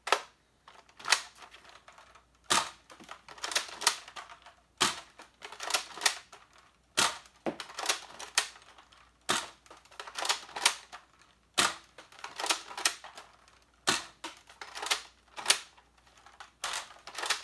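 Nerf Longstrike spring-plunger dart blaster being worked and fired again and again: sharp plastic clacks of the bolt being pulled back and pushed home, and the snap of each shot, in pairs about every second.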